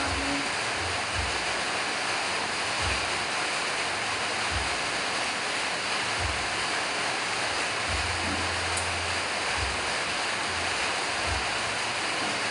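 A steady, even rushing hiss, with soft low thumps every second or so.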